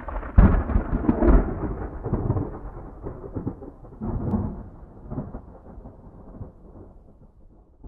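Thunder: a loud crack and rumble about half a second in, a second peal about four seconds in, then the rumble rolls away and fades out.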